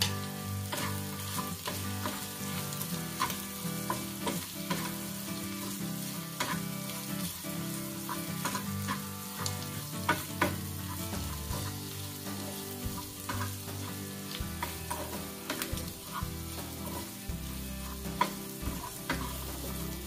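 Snail meat sizzling in garlic butter in a frying pan, stirred with a wooden spatula that scrapes and taps against the pan again and again.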